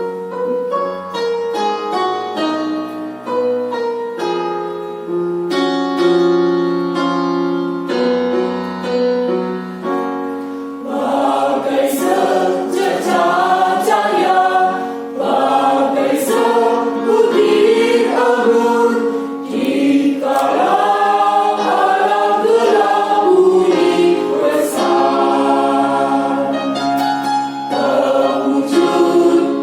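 A keyboard plays an introduction alone for about ten seconds, then a choir comes in singing in parts over the keyboard accompaniment and the music grows louder.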